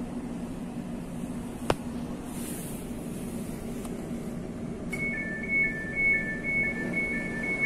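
Class 345 Aventra door-closing warning: starting about five seconds in, a quick alternating high-low two-tone beeping over a steady low hum inside the carriage, with a single sharp click a little before.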